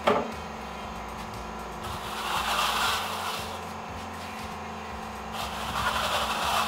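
A long aluminium float scraping across fresh cement render on a wall in two long rubbing strokes, about two seconds in and again near the end. A sharp knock is heard right at the start.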